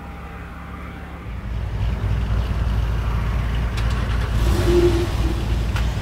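McLaren 12C's twin-turbo V8 running through its sport exhaust while the car stands still. About a second in it gets much louder and then runs at a steady deep low level.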